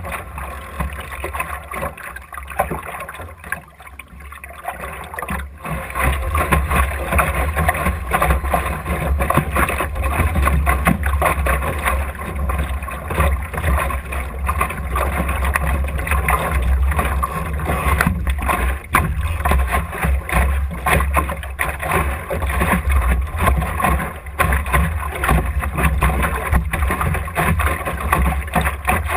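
Water rushing and splashing along the hull of an Optimist dinghy under sail, over a heavy rumble of wind on the boat-mounted camera's microphone. Both get louder about six seconds in.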